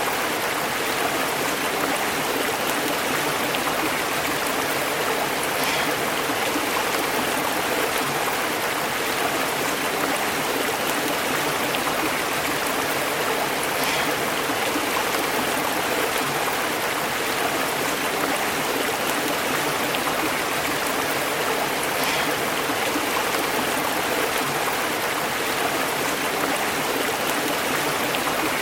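A small stream running over rocks, with steady babbling and bubbling water.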